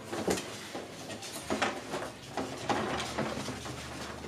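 Poodle puppies scuffling and bumping about on the playpen mat and foam steps: scattered knocks and scrabbles, about four or five in a few seconds.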